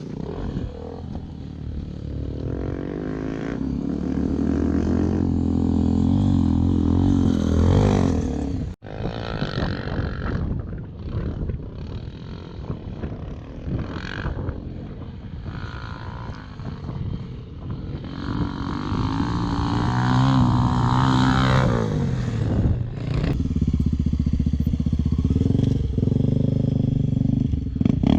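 Off-road dirt bike engines revving hard and easing off as riders work the track, pitch rising and falling with the throttle. The sound cuts out abruptly for an instant about nine seconds in, then comes back and swells again later.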